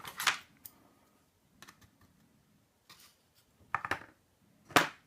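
Small metal clicks and taps from a pin-tumbler lock cylinder being taken apart by hand, its pins and small parts knocking together. A few sharp clicks, the loudest near the end, with faint ticks between.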